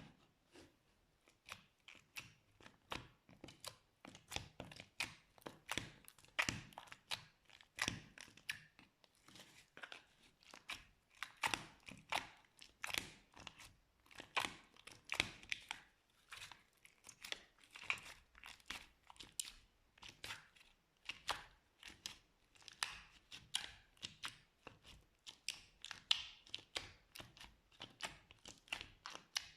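Slime being squeezed and stretched by hands, giving an irregular stream of small sticky pops and crackles, several a second.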